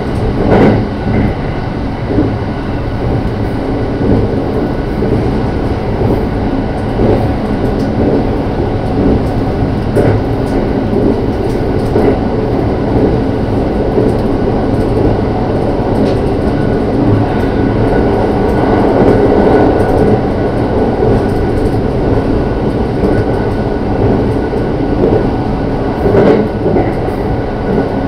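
Marine Liner electric multiple-unit train (JR Shikoku 5000 series leading, with 223 series 5000 cars) running at speed, heard from inside the leading car: a steady rumble of wheels on rail. Now and then the wheels click sharply over rail joints.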